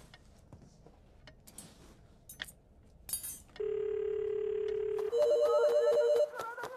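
Mobile phone ringtone for an incoming call: a fast trilling two-note pattern with a bright melody over it, starting about five seconds in and breaking off a second later. Before it come faint rustles and then a steady single tone held for about a second and a half.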